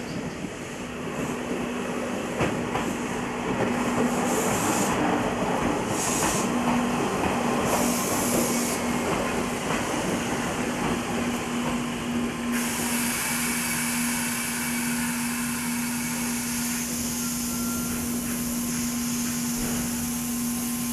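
Iyo Railway Takahama Line electric train at the platform, running with a steady hum under a rumbling noise. Short hisses come about four and a half, six and eight seconds in, and a continuous hiss sets in about twelve seconds in.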